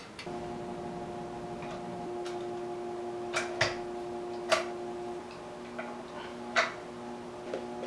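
A few sharp, irregular metallic clicks from hands working the spokes and nipples of a bicycle wheel mounted in a truing stand, over a steady hum of several tones.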